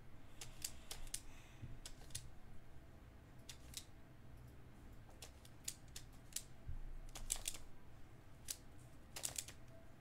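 Skewb twisty puzzle being turned by hand: its plastic pieces click and snap into place on their ball bearings, in an irregular run of sharp clicks about two a second.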